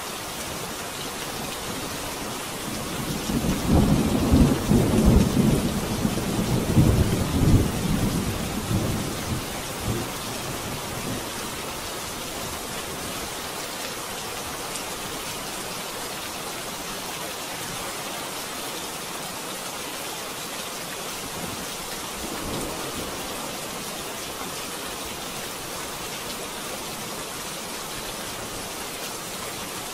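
Steady rain with a long rolling thunderclap that builds about three seconds in, swells twice and dies away over several seconds. A fainter rumble of thunder follows later.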